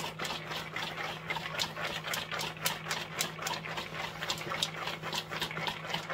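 Popped popcorn tumbling and rattling inside a lidded plastic bowl as it is shaken to coat it with sauce: a continuous stream of quick, light clicks and rustles.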